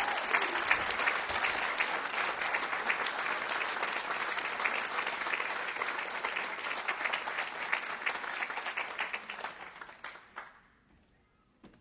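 Audience applauding: dense, steady clapping that fades away about ten seconds in.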